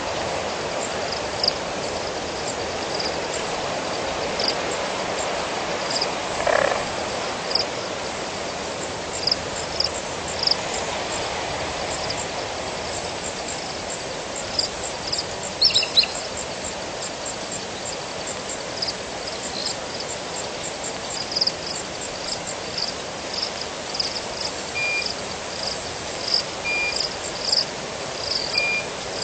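Frogs calling at a waterhole: many short, high chirps repeated irregularly over steady background noise, with a louder call now and then.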